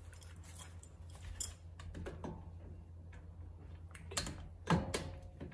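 Scattered light metallic clicks and taps of tools and hardware being handled at a car's front wheel hub and suspension knuckle, with a louder knock near the end over a low steady hum.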